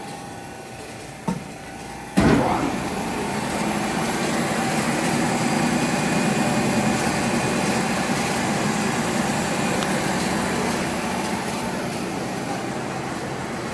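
A sharp knock about two seconds in, then a Timesaver wide belt grinder running steadily with a low machine hum, its abrasive belt not fitted.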